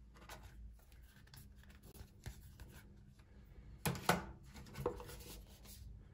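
A phone and its cardboard retail box handled on a tabletop: rubbing, scraping and small clicks, with a few louder knocks about four seconds in and again near five seconds as the box is grasped and lifted.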